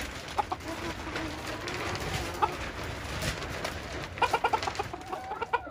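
Silkie chickens clucking softly, with a quick run of clucks about four seconds in: the blue silkie rooster calling a hen over to food (tidbitting). Wind rumbles on the microphone throughout.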